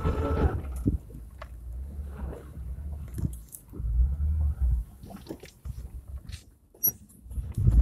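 Daihatsu Terios driving slowly through snowy, slushy ruts, heard from inside the cabin: an uneven low rumble from the engine and tyres, with scattered knocks and rattles as the car bumps along.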